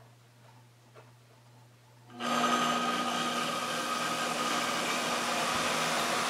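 Salvaged treadmill DC motor, run from the treadmill's control board, switching on about two seconds in and running steadily with a whine. It starts only after a short delay, which may be from old wiring. Before it starts there is only a faint hum.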